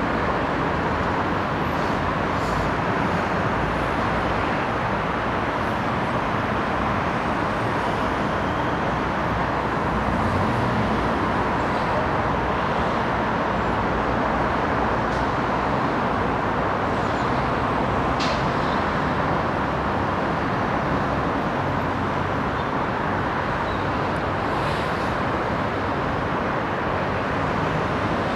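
Steady hum of city road traffic, cars and buses blending into one continuous wash, with a few faint, brief high sounds now and then.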